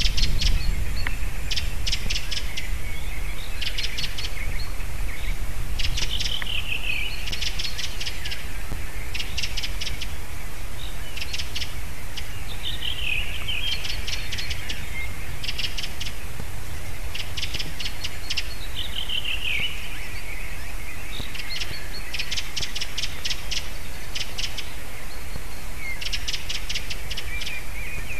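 Female white-tailed eagle whining: every few seconds comes a falling whine and a rapid run of short, high, sharp notes, repeated throughout, over a steady low rumble.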